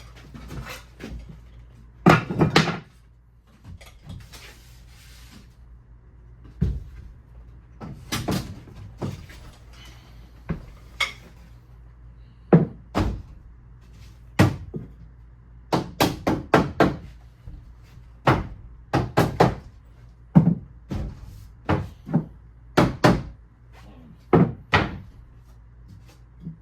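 Irregular groups of sharp knocks, often two to four in quick succession, as tongue-and-groove car siding boards are nailed and knocked into place on a wall.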